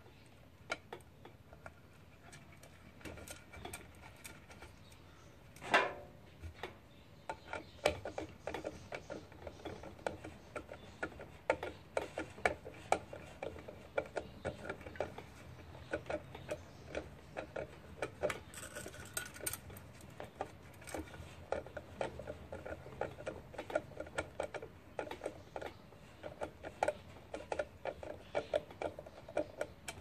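Small metal clicks and taps as a ceiling fan's light housing is fitted back on and its screws are turned in with a screwdriver, with one louder knock about six seconds in.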